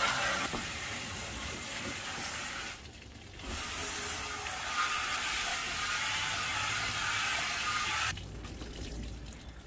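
Garden hose spray nozzle shooting water against the steel of an offset smoker's cooking chamber and firebox, a steady hiss of spray. The spray stops briefly about three seconds in, starts again, and cuts off about eight seconds in.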